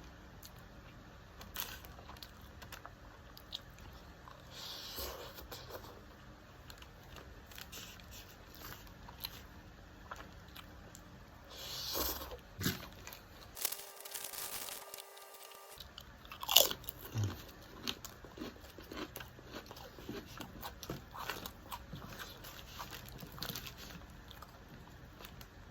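Close-miked mouth sounds of a person eating fried rice: chewing and biting with small crunches, among scattered soft clicks. A sharp click stands out a little past halfway.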